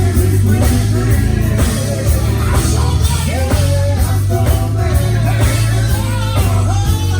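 Live gospel band playing with voices singing over it, over a strong, steady bass.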